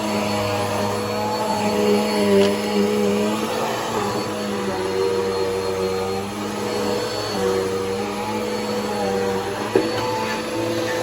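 Bissell PowerForce Helix upright vacuum cleaner running steadily, its motor hum dipping and recovering in pitch as the load changes while it is worked over the furniture, with a short click near the end.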